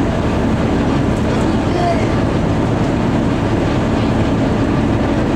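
Steady drone of a Moskva-class river passenger boat's diesel engine, heard on board while the boat is under way, with faint voices in the background.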